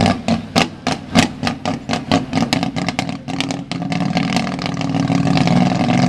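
Custom car's engine revving while its exhaust flamethrower fires flames out of the tailpipes: a quick, irregular string of sharp pops and bangs for the first three seconds or so, then a steadier run of engine and exhaust noise as the flames keep going.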